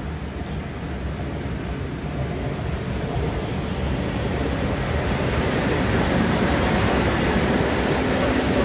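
Ty2 steam locomotive (a 2-10-0 freight engine) running slowly past at close range, its rumble and hiss growing steadily louder as it nears. A steady hum sets in near the end.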